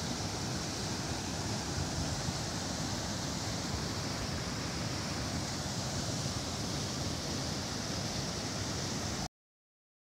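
Mountain stream rushing and splashing over rocks: a steady rush of water that cuts off suddenly near the end.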